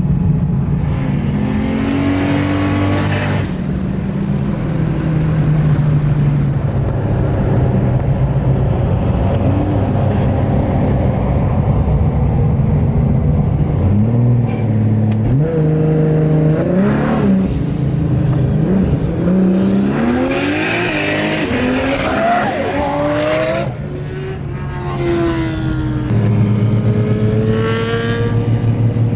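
Barra-swapped VL Commodore's inline-six running steadily while cruising, revved several times in the middle and near the end, its pitch rising and falling with each rev, with a loud hissing rush under the hardest rev.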